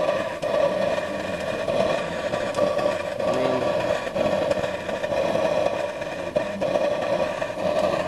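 Homemade gasoline vapor burner firing under a steam boiler, a continuous rushing flame noise that wavers slightly in strength. The burner is struggling to stay lit and burn evenly, with little spare heat or fuel.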